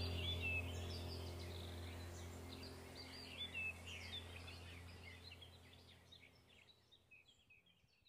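Small birds chirping and twittering in many quick, short calls over a steady low hum, the whole gradually fading out.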